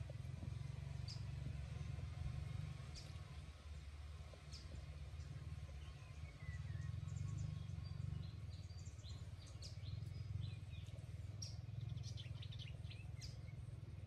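Birds chirping and calling now and then, with a short falling call about halfway through and a quick run of chirps near the end, over a steady low rumble.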